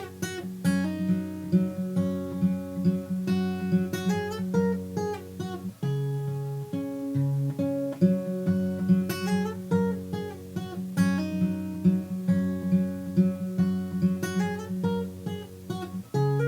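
Acoustic guitar playing an instrumental passage, a steady run of plucked notes over a sustained bass.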